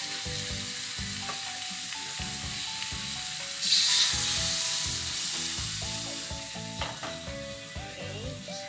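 Water poured from a bowl into a hot wok of fish and spice paste on a gas flame, over a steady sizzle. A loud burst of sizzling comes about four seconds in as the water hits the hot pan.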